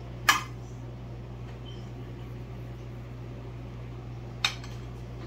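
A metal serving spoon clinks twice against a dish of rice while rice is spooned out, once sharply just after the start and again near the end, over a steady low hum.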